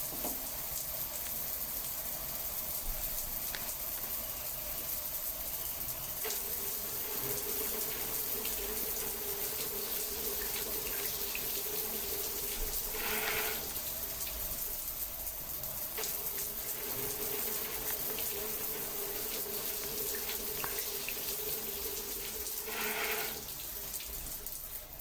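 Running water flowing steadily, with two brief brighter bursts, one about halfway and one near the end.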